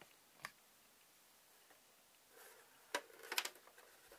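Shell cover of a dental X-ray head being lifted off its base: a single light click, then about three seconds in a quick cluster of sharp clicks and knocks as the cover comes away.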